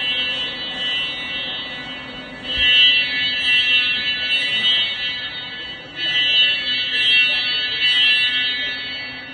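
Fire alarm sounder giving off a steady buzzing tone made of many evenly spaced high tones, sounded as a test of the alarm system. It grows louder about two and a half seconds in and again about six seconds in.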